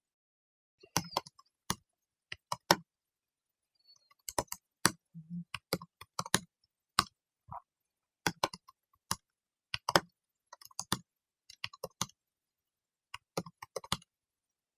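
Typing on a computer keyboard: irregular, separate keystrokes at an uneven pace, with silence between them.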